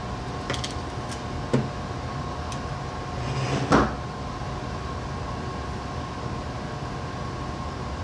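A ratcheting Powerpole crimper (ConnectorPros TC-1) closing on a contact: a few sharp clicks, then a louder snap a little under four seconds in, over a steady background hum.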